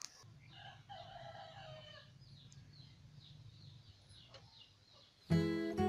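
A rooster crowing once, followed by a run of short, high, falling chirps. Strummed acoustic guitar music starts near the end.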